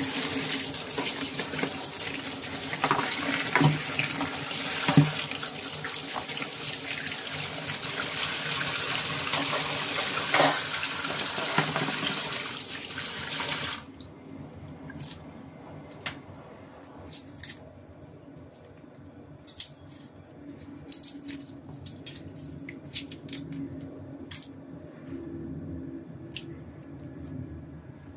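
Kitchen tap running into a stainless steel sink while shrimp are rinsed by hand in a plastic tray, with a couple of knocks; the tap is shut off about halfway through. After that, only scattered light clicks and taps as the shrimp and dishes are handled.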